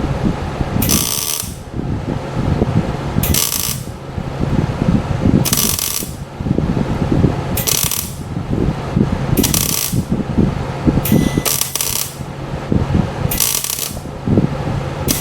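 Electric arc welder laying a stitch weld in short bursts, about one every two seconds, each a brief sizzle, over a steady low hum. The weld is on thin, rust-eaten steel of a pickup bed's support rail that keeps burning through.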